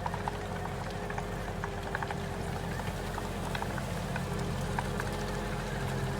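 Skid steer engine running steadily, with scattered light clicks and knocks over it.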